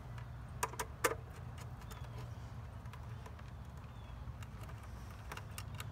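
A few light clicks and taps of a screwdriver and wire against a pool pump's plastic terminal block, mostly in the first second and faintly again near the end, over a low steady hum.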